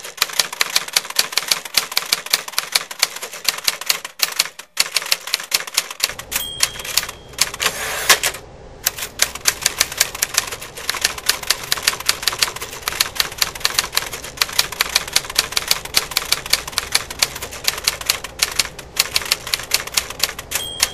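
Typewriter keys clacking in a rapid, continuous run. A short bell ding sounds about six seconds in and again near the end.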